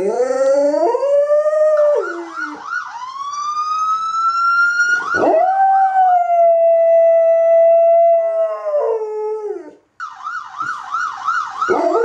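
A dog howling along with a police siren: long, drawn-out howls that rise, hold steady and fall away, over the siren's fast, repeating warble. The sound cuts out briefly about ten seconds in, then the siren's warble and the howling start again.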